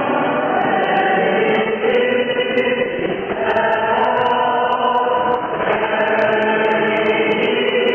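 Greek Orthodox church chanting: several voices singing together in long held notes that move to a new pitch every second or two.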